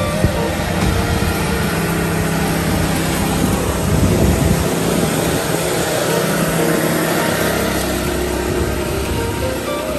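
Small petrol engine of a powered reel mower running steadily as the mower is pushed across a lawn.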